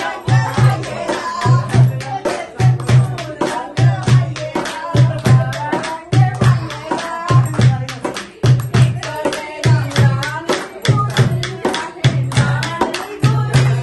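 Women singing a folk song together to a dholak, the two-headed barrel hand drum: a deep bass stroke falls about once a second with quick sharp strokes in between, and hands clap along.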